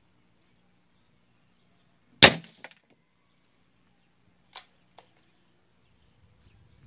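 A single shot from a Gamo Black Bull IGT Mach 1 .177 gas-piston break-barrel air rifle: one sharp crack about two seconds in, with a short tail. A small click follows just after, and two fainter clicks come a few seconds later.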